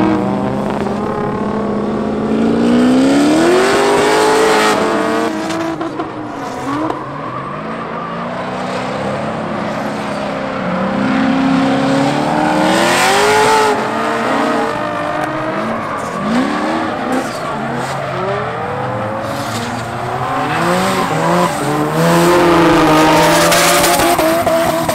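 Several drift cars sliding in tandem, their engines revving hard with the pitch rising and falling again and again as they go, mixed with tyre squeal.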